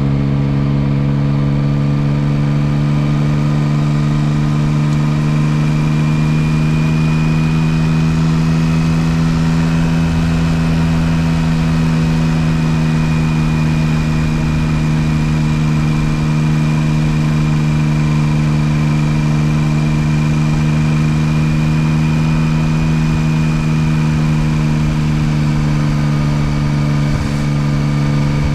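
Yamaha Tracer 9 GT+'s 890 cc inline three-cylinder engine running at a light, steady cruise, heard from on the motorcycle. The engine note holds almost level, lifting slightly for a few seconds early in the stretch.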